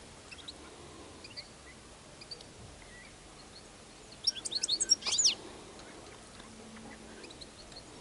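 Small finches calling: a few faint scattered chirps, then a quick burst of high twittering chirps about four seconds in, with one falling note, over a faint outdoor background hiss.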